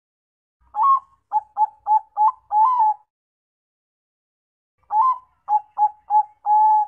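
Bangkok-type zebra dove (perkutut) singing two phrases of its cooing song: each a longer opening coo, about four short quick staccato notes, then a longer drawn-out final coo. The first phrase starts just under a second in, the second about five seconds in.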